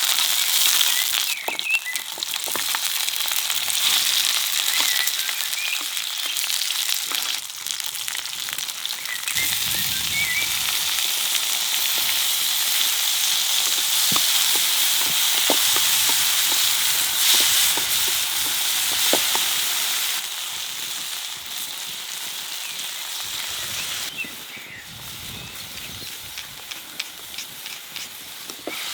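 Food frying in hot oil: a steady sizzle with scattered crackles that eases off about two-thirds of the way through. Birds chirp faintly now and then.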